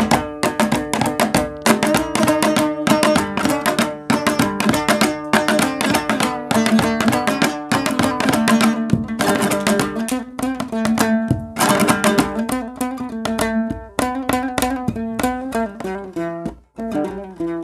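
Afghan dambura, the two-stringed long-necked fretless lute, strummed solo in Laghmani style: rapid, steady, rhythmic strumming over a ringing drone string, with a short break near the end before the strumming picks up again.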